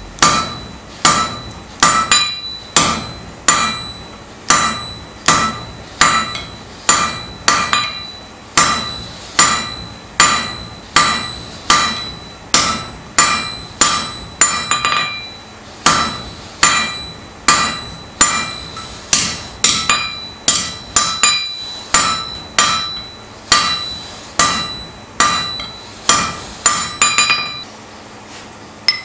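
Hammer blows on hot steel bar stock on an anvil as it is forged, a steady run of about one strike a second, each strike ringing with a metallic tone. The blows stop near the end.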